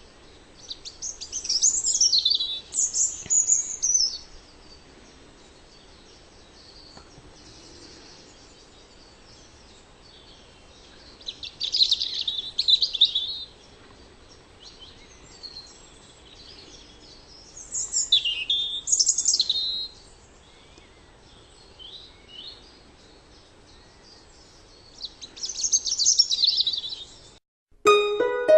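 European robin singing: four short, high, warbling phrases, each separated by a pause of several seconds. Harp music begins near the end.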